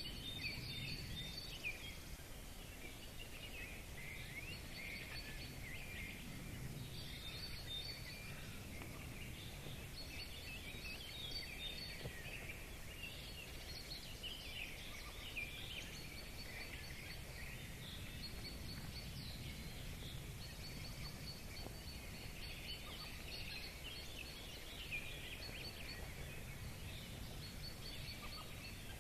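Several birds singing and calling at once, a thick layer of chirps and short repeated high notes, over a steady low background rumble.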